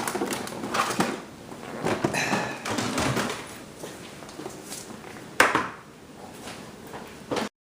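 Dell Dimension 8200 desktop case being closed by hand: rattling and clunking of the plastic and sheet-metal cover, with one sharp knock about five seconds in.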